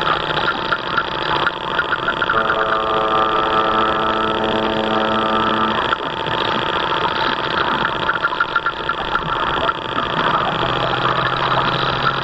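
The running noise of a 1/30-scale radio-controlled model boat, picked up close by its onboard camera: a continuous, steady mechanical sound. A steady pitched tone joins it about two seconds in and holds for roughly three seconds, and a low hum comes in near the end.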